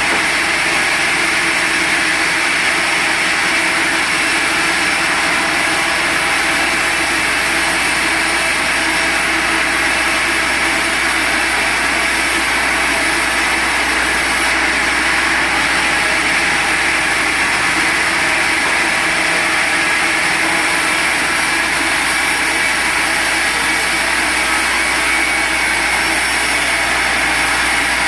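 Sawmill machinery running steadily and loudly, a constant mechanical noise with a high hiss and a steady hum that does not change.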